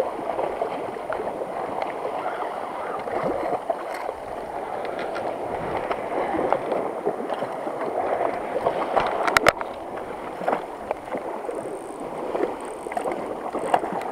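Sea water washing and sloshing against rocks at the waterline, with a sharp double click about nine seconds in.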